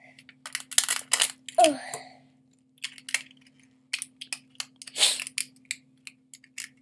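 Hands working at a plastic toy canister whose lid won't come open: irregular clicks, scrapes and rustles of plastic, with a short squeak about one and a half seconds in and a steady low hum underneath.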